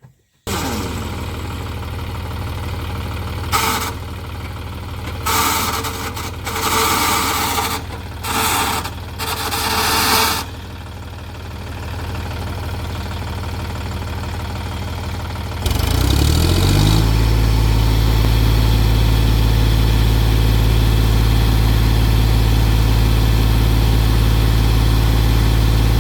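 John Deere 5050D tractor's diesel engine running steadily, with several short louder bursts of noise in the first half; about 16 seconds in the engine speeds up and holds at a higher, louder steady speed.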